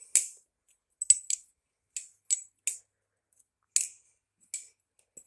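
A Will Hirsch Vulp balisong being flipped: sharp metal clicks as its handles swing round and strike, about ten at irregular intervals.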